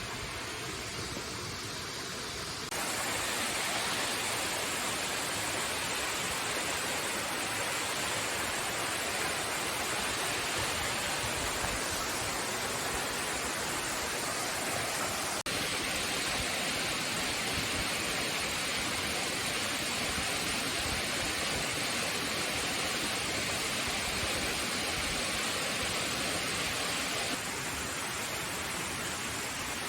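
Waterfall rushing steadily, a continuous hiss of falling water. It gets louder about three seconds in, breaks off for an instant midway and drops a little near the end.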